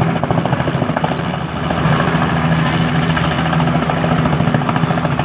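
Helicopter running close by: a steady engine drone with a fast, even pulsing from the rotor blades.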